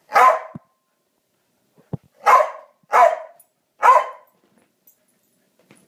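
A small dog barking four sharp times at a larger dog during rough play-fighting, with a short low thump just before the second bark.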